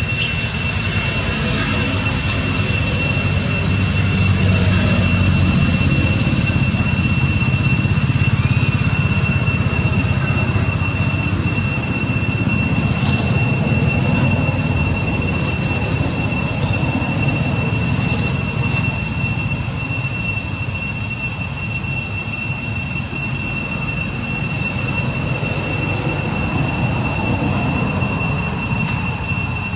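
A steady, unbroken high-pitched insect drone, like cicadas, over a low rumbling background.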